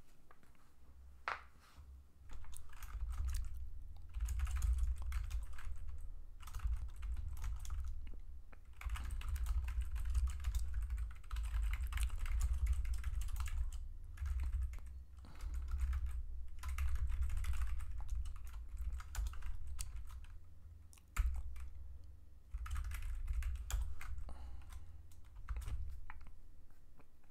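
Typing on a computer keyboard: rapid runs of keystrokes in several bursts separated by short pauses, each burst with a low thud under the clicks.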